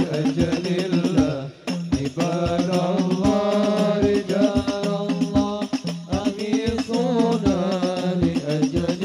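Group of men singing an Arabic sholawat through microphones, amplified, accompanied by frame drums (rebana) beaten in a steady rhythm. There is a brief break about a second and a half in before the singing and drumming carry on.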